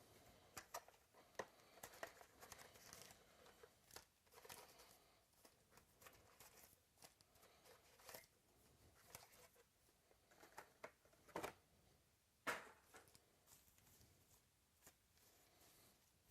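Faint rustling and crinkling of trading-card pack wrappers and cards being handled, with scattered small clicks and two sharper snaps about three quarters of the way through.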